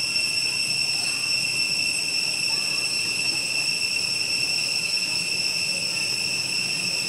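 Steady, shrill insect drone: one high tone with overtones, holding unchanged throughout.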